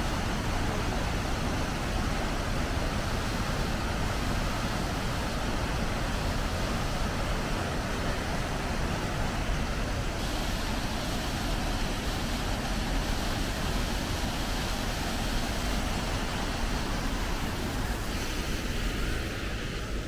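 Steady rushing of a waterfall and its fast-flowing river: an even, unbroken noise of falling and tumbling water.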